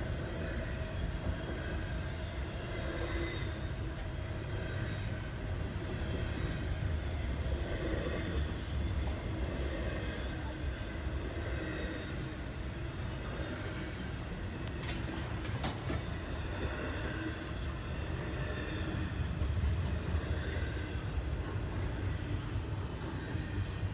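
CSX freight train rolling past, with a steady low rumble of cars on the rails. A few sharp clicks come about fifteen seconds in.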